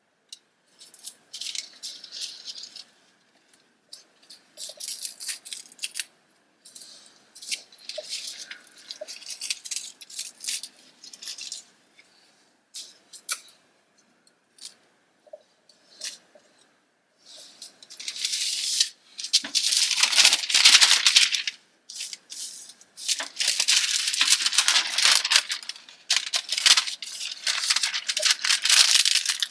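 Wax paper crinkling and rustling as it is handled. It comes in short, scattered bursts at first and turns louder and almost continuous from a little past halfway.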